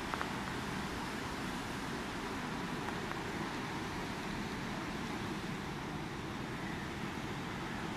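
Steady rushing noise of surf breaking across a bay, heard from a height.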